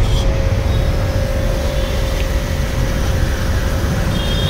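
Portable electric high-pressure washer switched on: its motor and pump start at once and run with a steady hum over a loud low rumble.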